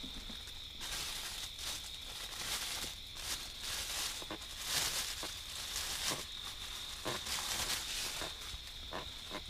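Irregular rustling and crinkling of packaging as small car speakers are handled, starting about a second in, over a steady high trill of crickets.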